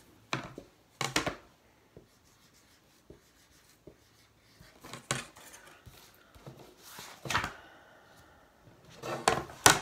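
Dry-erase marker writing on a small whiteboard: several short strokes in separate bursts, the loudest near the end.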